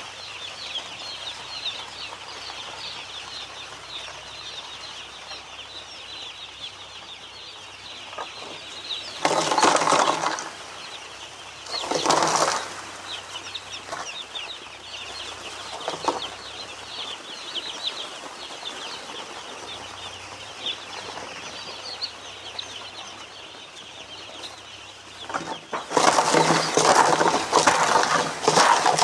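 A flock of day-old chicks peeping continuously, many short high calls overlapping. Loud bursts of noise cover them about ten and twelve seconds in, and again over the last three seconds.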